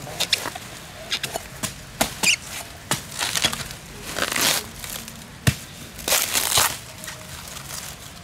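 Fibrous coconut palm trunk being torn and broken apart by hand: irregular rasping tears mixed with sharp cracks and snaps, the loudest crack about five and a half seconds in.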